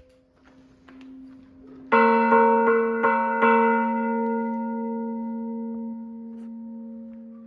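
A cast-iron church bell struck five times in quick succession by an electric hammer, about two seconds in, then left ringing and slowly dying away. A softer hum from an earlier-struck bell fades out before the strikes.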